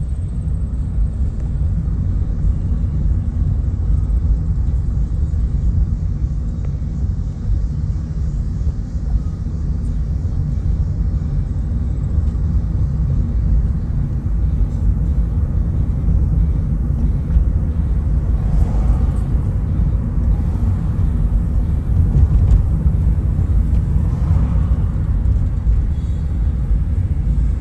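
Steady low rumble of a car driving at town speed, heard from inside the car: road and tyre noise with the engine underneath.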